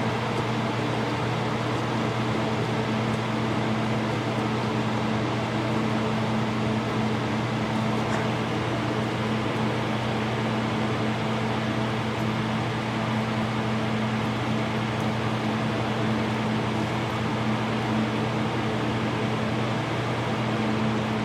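A small electric motor or fan running steadily, with a low hum under an even whooshing noise.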